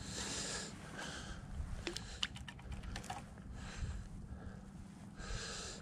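Close handling of a spinning rod and reel: soft rustling comes and goes, with a quick run of light clicks a little over two seconds in.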